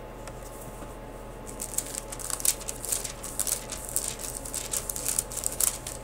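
Thin Bible pages being flipped through: a quick run of papery rustles and flicks starting about a second and a half in, over a low steady hum.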